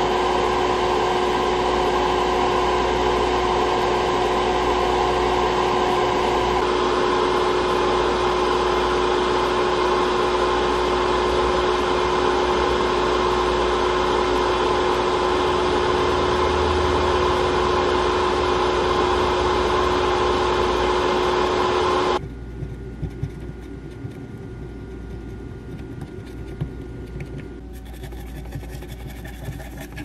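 Fume extractor fan running with a steady hum over a broad hiss, cutting off abruptly about 22 seconds in.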